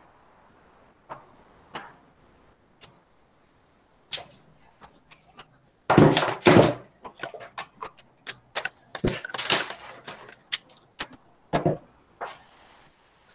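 Irregular knocks, thuds and clicks, with a pair of loud thuds about six seconds in and a busy run of sharp clicks and clatters after them.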